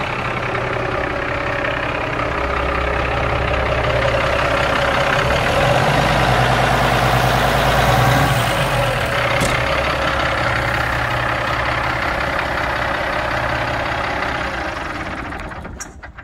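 Kenworth T660 truck's diesel engine idling with the hood open. It rises briefly in speed and loudness about halfway through, then settles back to idle.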